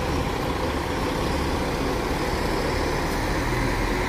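Diesel engine of a Cometa intercity coach running as the coach moves slowly past close by: a steady low rumble.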